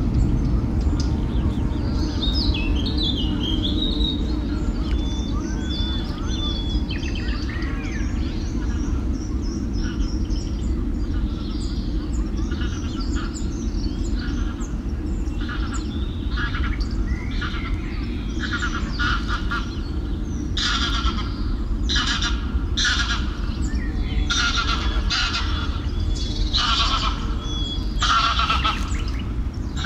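Small birds chirping, then geese honking over and over, the honks growing louder and more frequent through the second half. A steady low rumble lies underneath.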